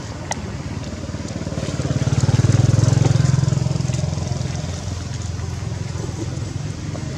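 A motor vehicle engine running with a low, rapid pulse. It grows louder about two seconds in and fades back down after about four seconds.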